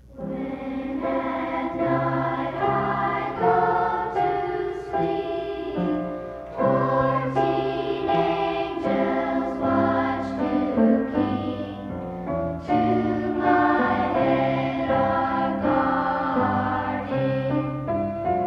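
Children's school choir singing a slow, held song, the voices moving from note to note about once a second over low sustained notes beneath them. The sound comes from a 1979 school choir record.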